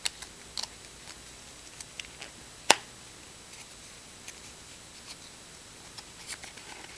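Small cardboard box of mini trading cards being opened by hand: scattered light clicks and scrapes of the card stock, with one sharp click a little under three seconds in.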